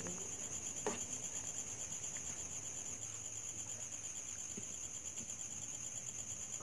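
Crickets trilling steadily in a high, fast-pulsing drone, with a single light clink about a second in.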